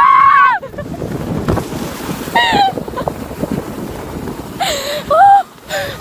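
Girls shrieking and squealing while sliding down a snow slope on inflatable snow tubes: one long shriek at the start, a short one midway and several near the end. Between them, a steady rush of wind on the microphone and the tube running over the snow.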